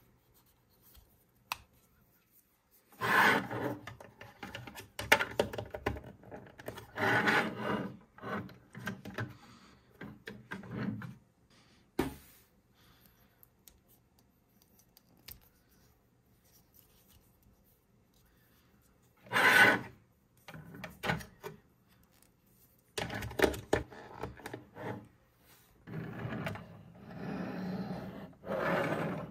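Small hard-plastic toy figures and clip-on plastic sunglasses handled close to the microphone: clicks, taps and rubbing in several short bursts, with one sharp click about twelve seconds in.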